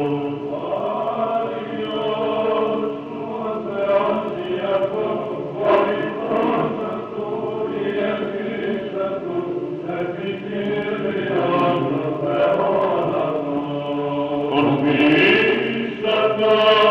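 A choir chanting an Orthodox church hymn with slow, held notes, ending the Psalter reading.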